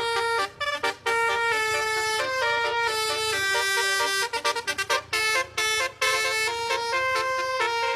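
Background music: a melody of held, brassy horn-like notes changing about every half second, broken by a few short stops.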